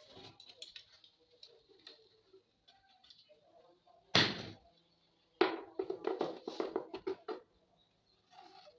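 Hand work on a paper-covered speaker box: scattered light clicks and rustles, a single sharp knock about four seconds in, then about two seconds of rapid scratchy strokes.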